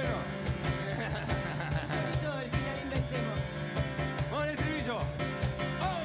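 A live rock band playing a song, with a man singing into a microphone over a steady beat.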